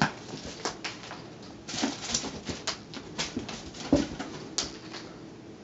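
A cat playing with a feather wand toy on couch cushions: light rustling and scattered small taps, with a soft thump about four seconds in as the cat pounces and lands.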